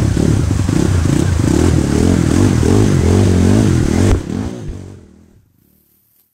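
Dirt bike engine running and revving up and down as the bike is ridden through a shallow stream, with splashing water. About four seconds in, the whole sound drops off sharply and fades to near silence.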